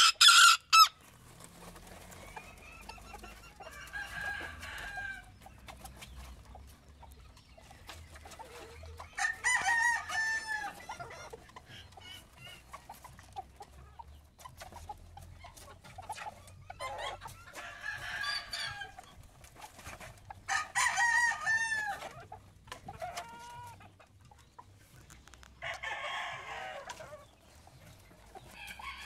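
Buff bantam chickens: a rooster crowing about five or six times, each crow a second or two long, with clucking between. A brief loud clatter right at the start.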